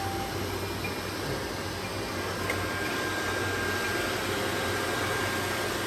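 Robot vacuum cleaners running, a steady whirring hum, with a faint high whine joining about two seconds in.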